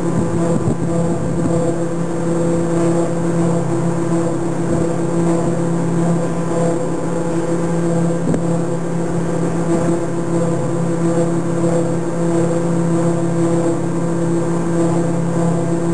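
Steady mechanical drone of a ship's machinery: an even low hum with a higher steady whine over it, unchanging throughout.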